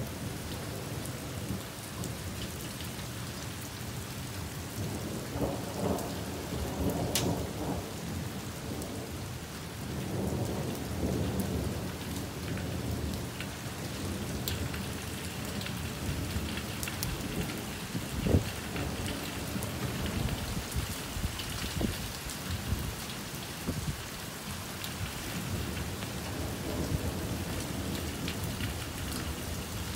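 Steady rain in a windy thunderstorm. Low rumbles of thunder swell about five and ten seconds in, and a single sharp crack about eighteen seconds in is the loudest moment.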